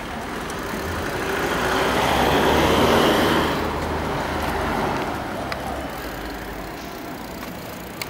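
A motor vehicle driving past on the street: its engine and tyre noise grow louder to a peak about three seconds in, then fade away.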